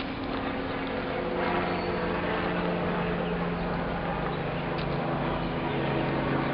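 A steady low mechanical drone with several held low tones, like machinery running, over a general outdoor noise bed.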